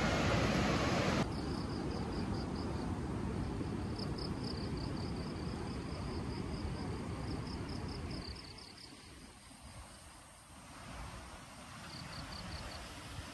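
Ocean surf rushing for about the first second. Then, after a cut, insects chirping high and fast in an even pulse of about five chirps a second over a low steady hiss. The chirping stops about two-thirds of the way through and returns briefly near the end.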